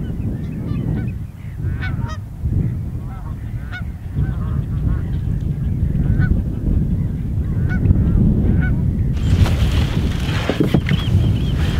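A flock of geese honking, many short calls overlapping, over a low rumble of wind on the microphone. About nine seconds in, a steady hiss sets in, with a few knocks and a higher, repeated bird call.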